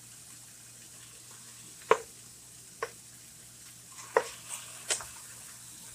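Chicken pieces frying in a pan with a faint, steady sizzle, broken by four sharp taps against the pan as the pieces are turned over.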